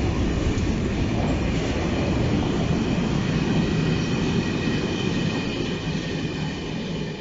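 Freight train of sliding-wall covered wagons rolling past close by: a steady rumble of wheels on the rails with a faint steady high tone over it, starting to fade near the end as the tail of the train passes.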